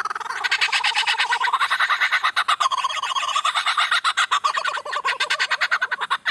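A lyrebird mimicking the laughing calls of a flock of kookaburras: a long, fast run of repeated notes.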